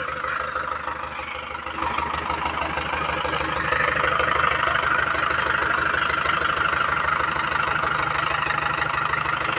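Mahindra 585 tractor's four-cylinder diesel engine running, picking up speed about two seconds in and again near four seconds, then holding steady.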